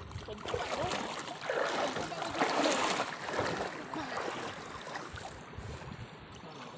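People wading through shallow sea water, legs swishing and splashing with each step, with faint voices in the background.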